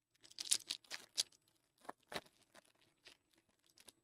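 Foil wrapper of a trading-card pack being torn open and crinkled: a quick run of short, crackly tearing noises, strongest in the first second and a half, thinning to lighter rustles and clicks as the cards are handled.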